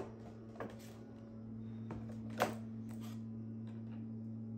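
A few sharp clicks and crackles of a clear plastic box being handled by a monkey, the loudest about two and a half seconds in, over a steady low hum.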